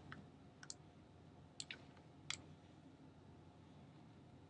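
Near silence with a handful of faint computer mouse clicks, spread over the first couple of seconds.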